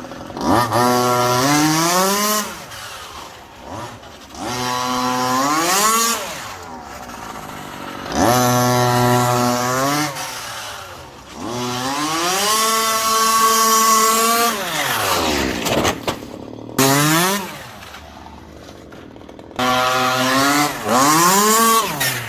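Two-stroke petrol engine of a 1/5-scale MCD 4WD RC rally car revving in about six bursts, each rising in pitch and then falling away as the throttle is let off.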